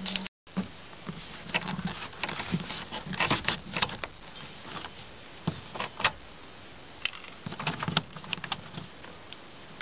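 Irregular small clicks, taps and light scraping of a tool working at the metal retaining clip behind a pickup door's window-crank handle. The clicks are busiest for the first few seconds, with single louder clicks further on.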